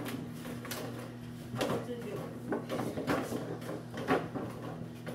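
A microwave oven humming steadily as it heats, with a few light knocks and clatters over it.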